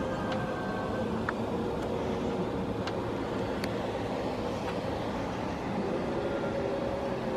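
Steady background rumble with a faint vehicle engine hum, and a few light clicks.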